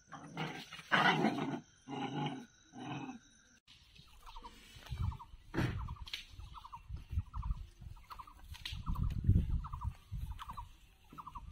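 Two dogs growling and snarling in a scuffle, in four bursts over the first three and a half seconds. Then puppies play-fighting on grass, with low rustling and thuds and a short trilling call repeated about twice a second.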